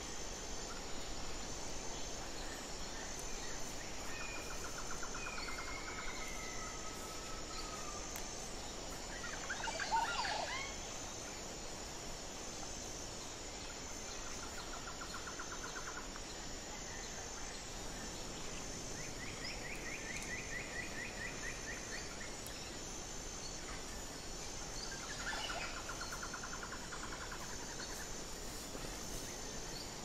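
Forest ambience: a high insect buzz pulsing evenly, with birds calling over it in several short rapid trills and one louder, lower, sweeping call about ten seconds in.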